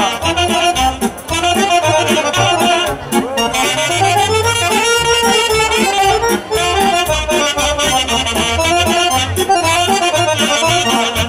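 Instrumental break of Romanian folk dance music: a Roland accordion and a saxophone playing the running melody over a steady drum-kit beat.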